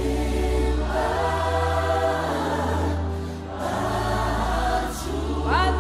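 Choir singing a gospel hymn in harmony over sustained low bass notes.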